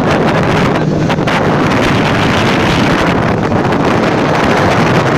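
A boat's engine running steadily under way, heard from inside the wheelhouse, with wind buffeting the microphone.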